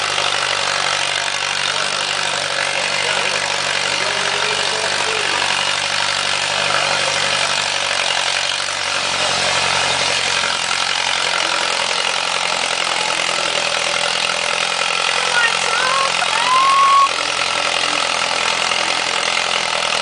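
Antique farm tractor engine running steadily at a tractor pull, its note shifting a little about halfway through. A short rising squeal-like tone comes about three-quarters of the way in.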